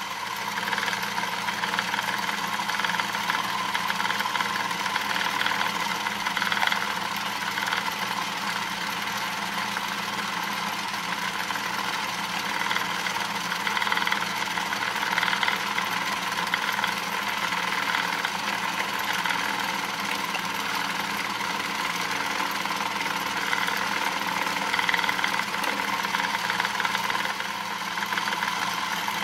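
Atlas lathe running with a router bit in its spindle, milling a slot in an aluminum block: a steady motor hum under the cutting noise, which swells and eases every few seconds as the cut goes on.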